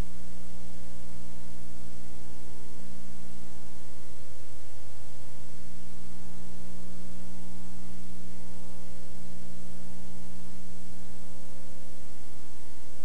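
Steady electrical mains hum with a buzzy stack of tones over constant hiss. Nothing else is heard. The hum's tone shifts slightly about three seconds in and again about nine seconds in.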